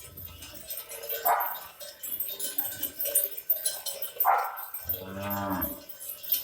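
A dog barks twice amid a cattle herd, with neck bells jingling throughout, and a low drawn-out call near the end.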